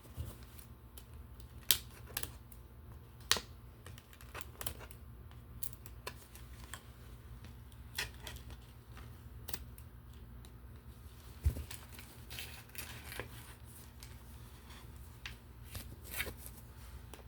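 Scissors snipping the small plastic ties that hold a Barbie doll's hair to its packaging: irregular sharp clicks and snips, about a dozen, spread out with pauses between them.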